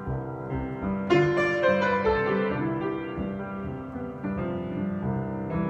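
Solo piano playing an instrumental passage between sung verses: chords and melody notes struck and left to ring, with a strong new chord about a second in.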